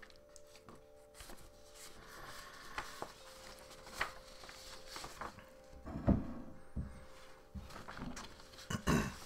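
Soft clicks and rustling close to the microphone, with two louder low knocks about six and nine seconds in, over a faint steady hum.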